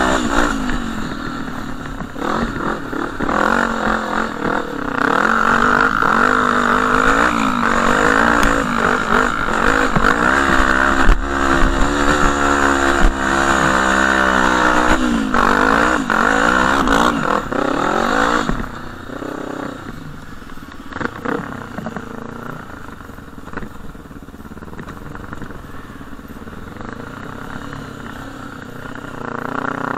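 Quad bike (ATV) engine under way, its revs rising and falling again and again as it is ridden over rough sandy ground, heard from the rider's helmet. About eighteen seconds in it drops to a quieter, low-revving run, then picks up again near the end.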